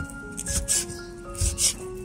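Cleaver slicing through raw pork onto a wooden chopping board: several short, scraping cuts, each with a dull knock of the blade on the wood. A melodic background tune plays throughout.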